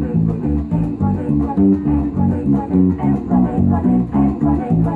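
Electric bass guitar played through an amp, picking out a rhythmic, syncopated bass line over a recorded backing track with drums.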